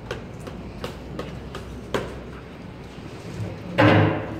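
Light, sharp taps about three a second on a plastic frisbee, struck by hand, for the first two seconds. About four seconds in comes a brief loud sound close to the microphone.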